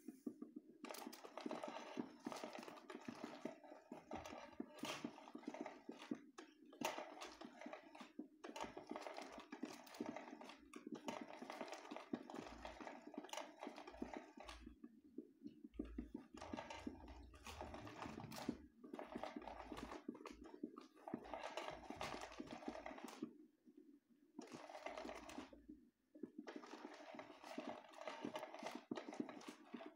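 Battery-powered cat toy running: its small motor whirs with a rapid clicking rattle as it sweeps a furry wand around under a round fabric cover. It stops briefly a few times, about halfway through and again twice near the end.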